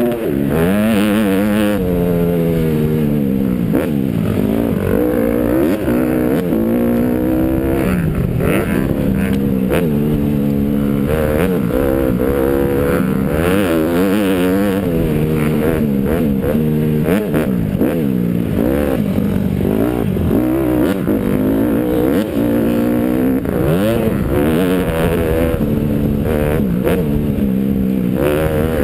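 Dirt bike engine heard up close from the rider's helmet, revving up and dropping back over and over as the rider accelerates, shifts and backs off around the track.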